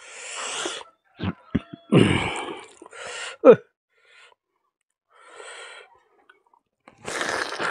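Mouth and breath sounds of a man eating by hand: sharp breaths, one loud sudden burst about two seconds in, a few lip and tongue clicks, and a brief grunt.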